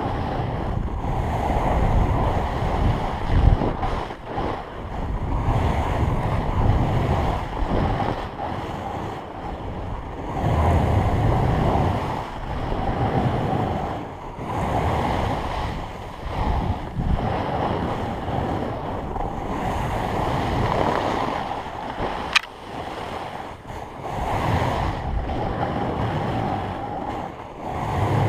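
Snowboard sliding and carving through powder snow, a loud hiss that swells and eases every few seconds, mixed with wind buffeting the GoPro's microphone. One sharp tick about two-thirds of the way through.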